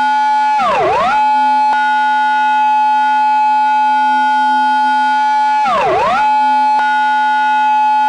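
Recreated Japanese police car siren holding a steady tone, swooping quickly down in pitch and straight back up twice, about five seconds apart: the pattern sounded when a patrol car enters an intersection.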